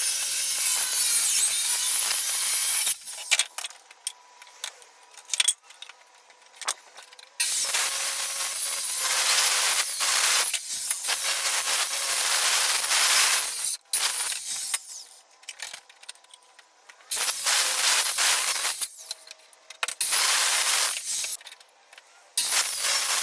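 A 7-1/4-inch circular saw cutting wood in several separate runs of a few seconds each, with short pauses between them.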